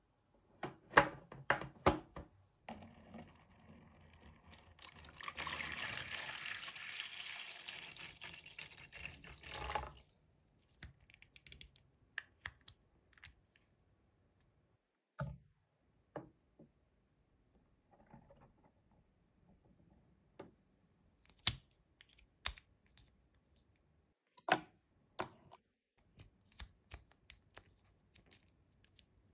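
Small hard-plastic toy pieces clicking and tapping as they are handled and fitted together, in scattered bursts, with a steady rushing hiss for about seven seconds near the start.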